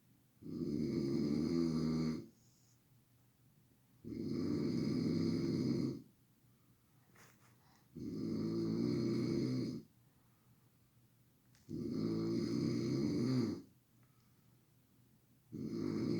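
A man snoring loudly in his sleep: long snores of about two seconds each, coming evenly about every four seconds, with quiet breathing gaps between them. The fifth snore starts near the end.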